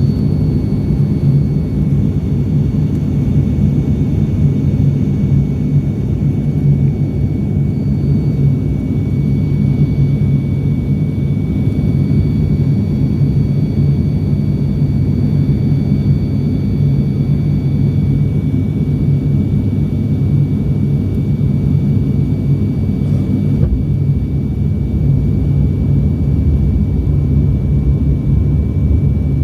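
Steady cabin drone of an ATR 72-600's twin turboprop engines and propellers in flight, a deep hum with a few faint high steady whines above it.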